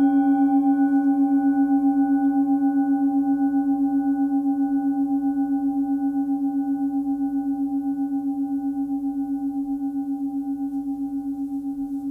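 Forged singing bowl, 17 cm across and tuned to C# (278 Hz), struck once and left to ring: a strong, steady low tone with higher overtones above it, wavering in a steady beat and fading slowly.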